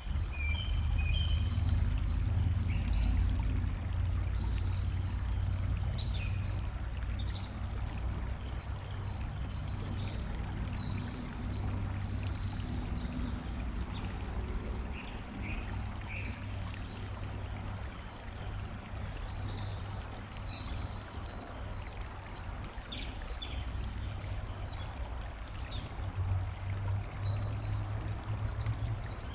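Flowing, trickling water with small birds chirping and calling over it, the calls busiest twice, around a third and two thirds of the way through. A steady low rumble runs underneath.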